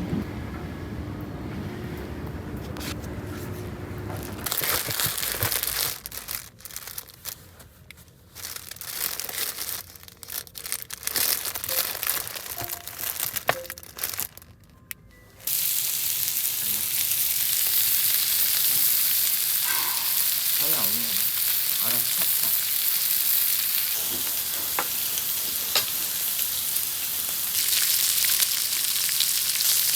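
Food sizzling as it cooks. The sizzle comes and goes at first, then settles into a steady sizzle from about halfway through.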